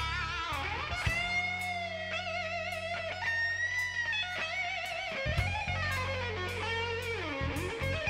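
Background music: a lead electric guitar plays a slow melody with wavering vibrato and sliding bent notes over held bass notes.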